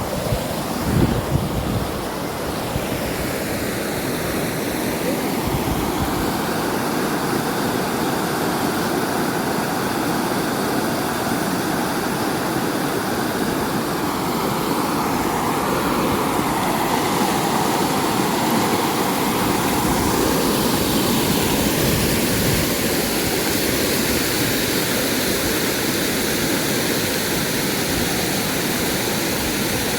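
Steady rush of a fast-flowing mountain river's water.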